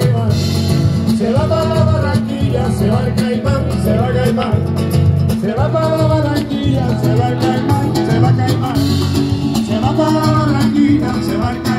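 Live amplified music from an acoustic guitar and electronic keyboard duo: strummed guitar and keyboard over a steady bass, with a melody line rising and falling above them.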